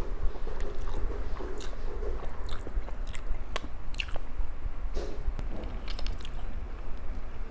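Close-miked eating: biting and chewing with short, crisp crunches, several crackles a second.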